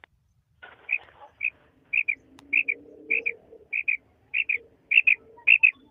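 Female common quail calling: short high notes, mostly in quick pairs, repeating about every half-second to second from about a second in.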